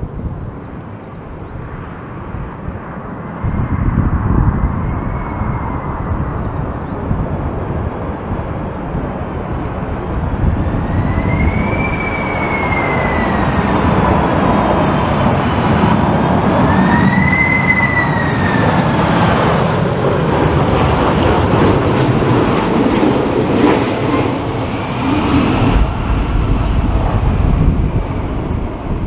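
Boeing 747-400 freighter on short final, its four turbofans running with a steady rumble. A high engine whine rises and falls several times as thrust changes.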